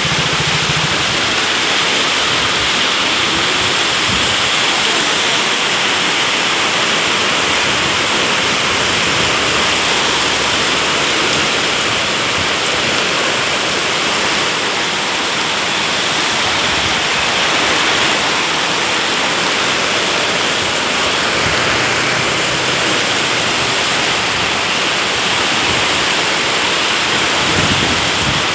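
Very heavy rain pouring down, a steady, dense hiss that holds at the same level throughout.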